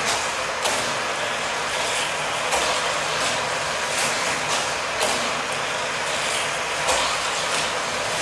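Toy car track running: a steady whirring from a battery-powered Hot Wheels track booster, with a brief louder swish or clack every second or two as small cars pass along the orange plastic track.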